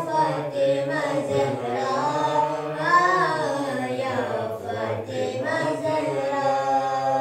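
A boy singing an unaccompanied devotional chant into a handheld microphone, in long held notes that bend up and down.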